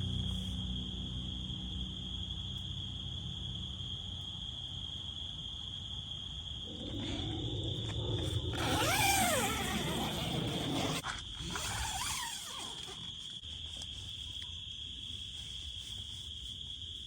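Evening insect chorus, a steady high-pitched trill of crickets or similar night insects. About eight seconds in, a distant call rises and falls for a couple of seconds.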